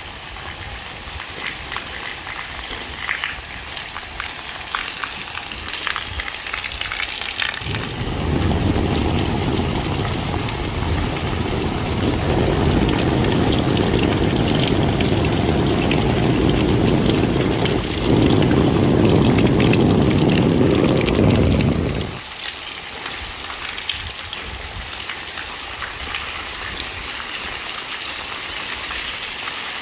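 Rain falling steadily, with a loud rush of pouring water from about eight seconds in. The rush gets louder about eighteen seconds in and cuts off suddenly about twenty-two seconds in.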